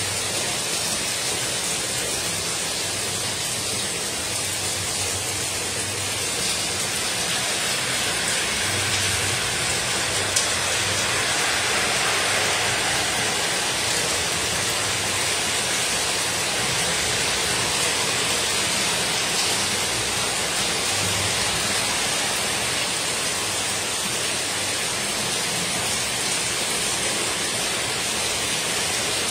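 Heavy rain falling steadily, with water streaming off the edge of a corrugated metal roof: an even hiss that swells a little through the middle.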